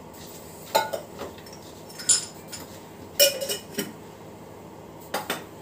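Clinks and knocks of a bowl and kitchen utensils being handled while paneer cubes are mixed with oil, salt and chilli powder for a marinade: a few short, sharp strikes about a second apart.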